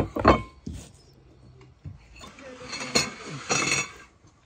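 Cutlery and china plates clinking at a table as a layered cake is cut and served: a sharp ringing clink at the start, a few more knocks within the first second, then a longer stretch of clattering and scraping about halfway through.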